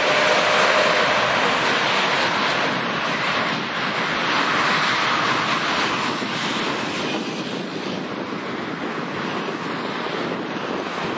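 Jet noise from a landing Boeing 747's four engines: a loud, even rush as the airliner passes low and flies away. It fades slowly over the last few seconds.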